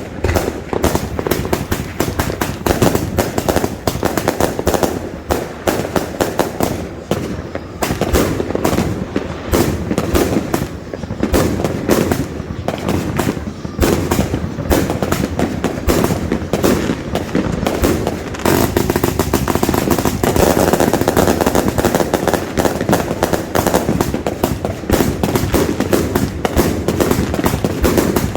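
A 288-shot consumer fireworks cake firing: rapid shots launching and bursting in quick succession. About two-thirds of the way through, the shots crowd into a denser, almost unbroken barrage.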